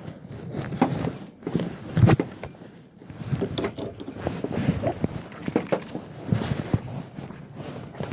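Jumper-lead clamps and metal parts being handled: irregular clinks, rattles and knocks, with a louder knock about two seconds in.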